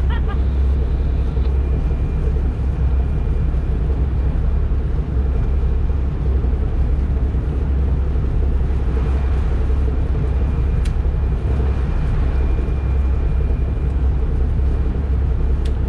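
A boat's engine running steadily, a low even drone.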